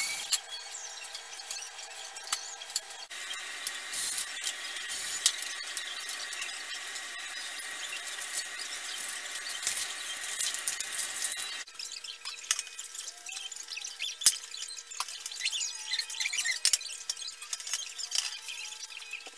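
Hand sanding of wooden cabinet doors with a sanding sponge: scratchy rubbing strokes with small clicks and squeaks. The background changes abruptly twice, at edit cuts.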